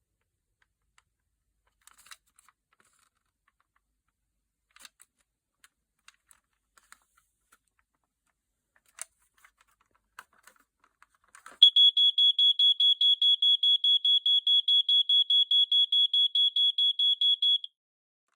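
Family Gard FG888L smoke alarm being tested: a few faint clicks of handling, then about eleven seconds in its piezo horn sounds a loud, high beeping that pulses rapidly, about six or seven beeps a second, for some six seconds before cutting off.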